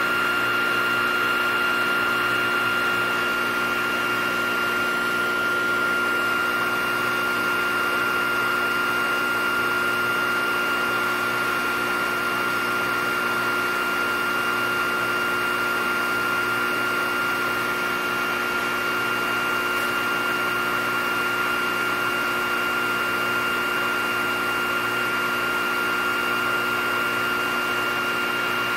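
Hot air rework station blowing hot air onto surface-mount components: a steady rush of air with a constant high whine.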